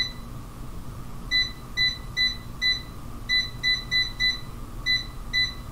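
Cosori air fryer's control panel beeping as its temperature button is pressed again and again: about a dozen short, high beeps at an uneven pace, one for each press.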